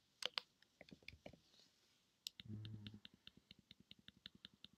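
Computer keyboard keys clicking: a few scattered taps, then a steady run of about five taps a second as one key is pressed over and over, stepping down through an autocomplete list. A brief low hum, like a murmured "mm", comes about halfway.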